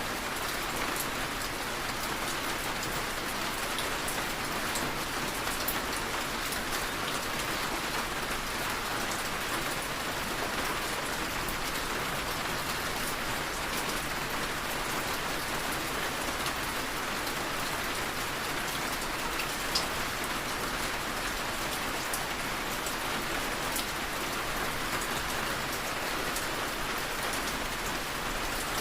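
Steady rain falling and pattering on a surface, with scattered individual drop ticks.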